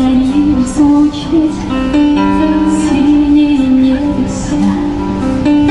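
A young woman busker singing a slow song to guitar inside a suburban electric train carriage, a melody of long held notes.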